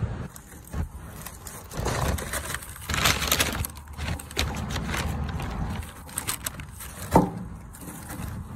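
Paper takeout bag rustling and crinkling as it is handled, densest about two to three and a half seconds in, with one short sharp sound just after seven seconds.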